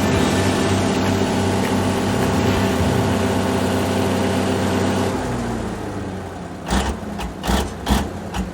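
Heavy diesel engine of an articulated dump truck running steadily. It fades away about five seconds in, and a few short, sharp knocks follow near the end.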